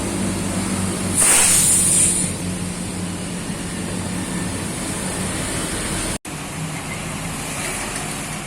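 Bored-up Honda Vario 125 scooter's single-cylinder four-stroke engine, fitted with a 61 mm Moto1 piston kit, running steadily. A loud hiss comes in about a second in, and the sound cuts out for an instant about six seconds in.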